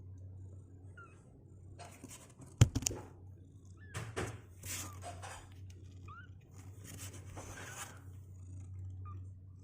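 Two-week-old kittens giving a few short, faint rising mews now and then, over spells of rustling and scratching as they move about. A sharp knock a little under three seconds in is the loudest sound, and a steady low hum runs underneath.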